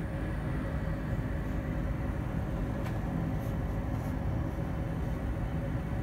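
Amana 95 IIQ gas furnace running steadily with its burners lit: an even low rumble with a faint hum.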